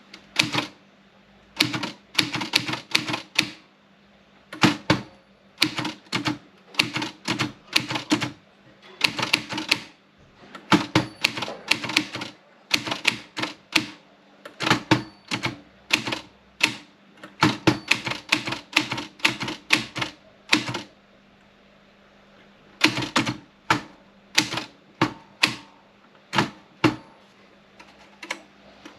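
Olympia Splendid 33 manual portable typewriter being typed on: sharp type-bar strikes in quick bursts of several keys, with short breaks between words and one longer pause of about two seconds about two-thirds of the way in.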